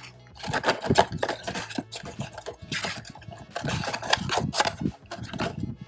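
Panini Donruss trading-card blaster box being opened and its foil card packs handled: an irregular run of crinkles, scrapes and taps.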